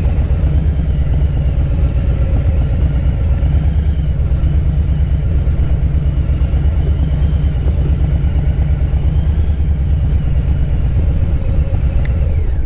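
Harley-Davidson Softail Low Rider's Milwaukee-Eight V-twin engine running at low, steady revs, a loud, even low pulsing.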